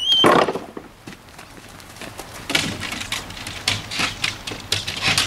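A Groenendael's paws knocking on a wooden agility A-frame as it climbs and crosses it: a run of irregular knocks starting a couple of seconds in, after a single loud noise right at the start.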